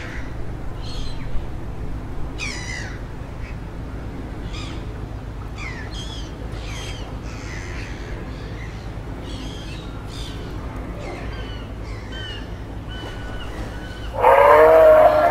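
Wild songbirds chirping and singing in short phrases over a steady low rumble. Near the end comes a much louder drawn-out call, about a second long, with a pitch that rises and falls.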